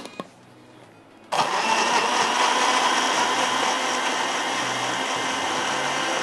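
Electric countertop blender starting up about a second in after a couple of light clicks, then running steadily as it blends milk, bananas and sugar into a banana shake.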